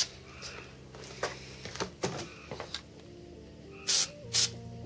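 Several short hissing bursts from an aerosol spray paint can, the two loudest near the end, over quiet electronic background music.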